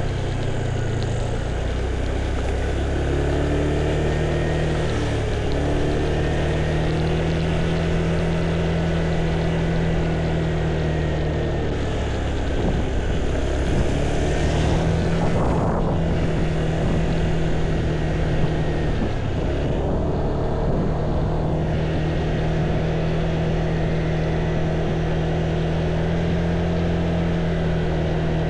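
A vehicle engine runs steadily while travelling along a road, over constant road and wind noise. Its note dips and changes briefly twice.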